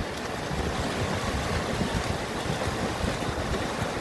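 A pack of swimmers splashing and churning the water with freestyle strokes just after a dive start, a steady rushing wash with low rumbling throughout.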